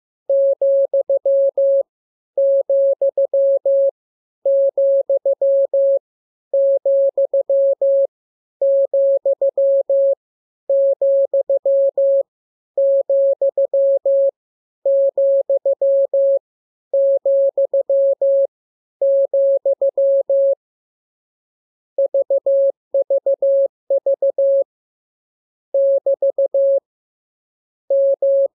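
Morse code sent as a steady electronic beep tone, keyed in dots and dashes. One character is repeated about ten times, then come three short groups and a single group, the "VVV" and "=" that open a radiogram, and the text keying begins near the end.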